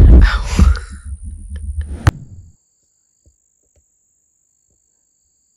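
Heavy low rumble and thumps on a phone microphone with faint whispering, ending abruptly at a click about two seconds in; then near silence with only a faint steady high tone.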